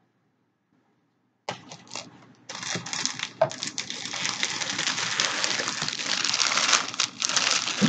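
Clear plastic wrapping around a plush toy crinkling as the toy is handled and pulled from a box. It starts suddenly about a second and a half in and goes on as dense, continuous crackling.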